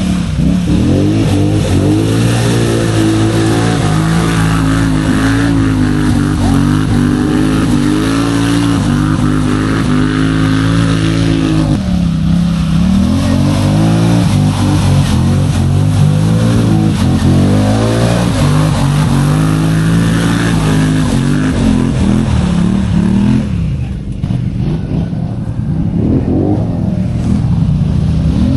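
ATV engine running close by, revving up and down, its pitch rising and falling every second or two. It dips to a lower, quieter note for a few seconds near the end.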